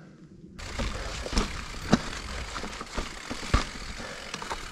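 Full-suspension mountain bike (a Giant Reign 29er) rolling fast down rough trail. A steady low rumble of tyres and wind comes in about half a second in, broken by sharp knocks and rattles as the bike hits rocks and ledges.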